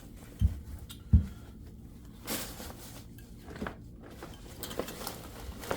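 A backpack and its packed gear being handled: two dull thumps about half a second and a second in, then scattered rustling of fabric and gear.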